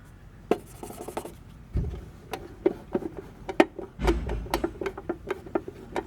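Hands handling the light timer and its enclosure: a scattered series of light clicks and knocks, with a couple of dull thumps and some rubbing.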